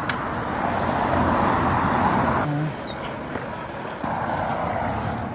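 Rushing road-traffic noise in two stretches: loud for the first two and a half seconds, then quieter, then back from about four seconds until just before the end, each starting and stopping abruptly.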